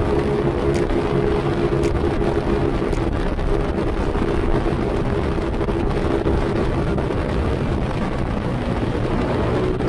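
Road and wind noise of a scooter ride, with wind buffeting the action camera's microphone. A steady drone sits under it and fades out about seven seconds in.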